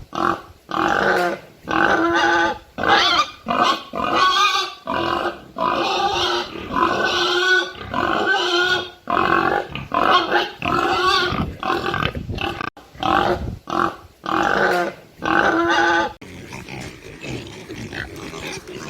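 Pig calling over and over in short, loud, squealing grunts, about one every half second to second, then turning quieter and rougher for the last few seconds.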